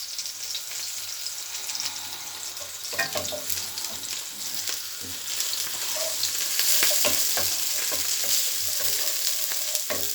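Onions, spring onions and red peppers sizzling in coconut oil in a frying pan, with a few clicks of a utensil stirring. The sizzle gets louder about two-thirds of the way through.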